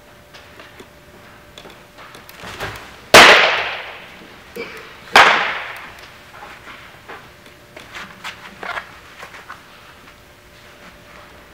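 A baseball smacking into leather gloves twice, about two seconds apart: sharp pops that ring on in the echo of a large indoor hall, as a pitch lands in the catcher's mitt and the throw comes back into the pitcher's glove.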